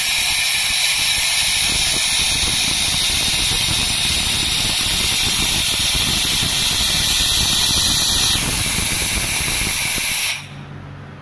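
Fiber laser welder working on 1 mm galvanized sheet: a loud, steady hiss that thins about eight and a half seconds in and cuts off abruptly about ten seconds in.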